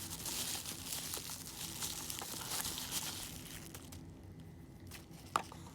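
Packaging crinkling and rustling as it is handled and opened by hand, with many small crackles for the first few seconds. It then goes quieter, with a sharp click near the end.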